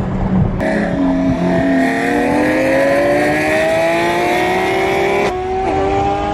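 Porsche 991.2 GT3 RS's naturally aspirated flat-six revving up under hard acceleration, its pitch climbing steadily for several seconds, then dropping sharply near the end as the revs fall.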